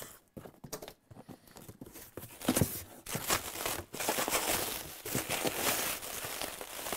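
Plastic bubble wrap and a cardboard shipping box rustling and crinkling as a graphics card is unpacked by hand, a dense crackle that starts about a second in.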